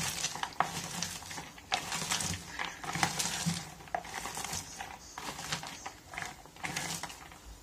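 Hands squeezing and pressing down freshly shredded raw cabbage in a plastic bowl: an irregular run of crisp crunching and rustling, dotted with short sharp crackles as the shreds are crushed.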